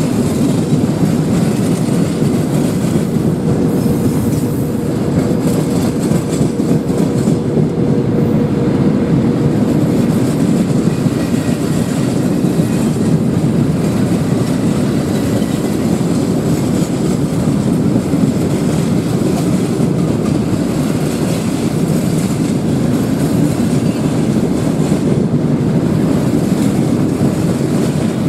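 Freight train of open gondola wagons rolling past, a steady loud rumble and clatter of steel wheels on the rails. A faint steady tone sits under it for about the first ten seconds.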